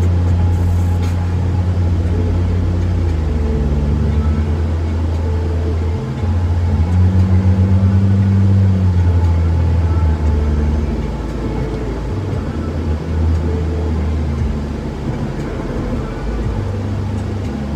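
Low, steady exhaust drone of a 2012 Lexus IS250 F Sport's 2.5-litre V6 with the muffler deleted, heard from inside the cabin while cruising at light throttle. The pitch shifts briefly about six seconds in, and the drone eases a little in the second half.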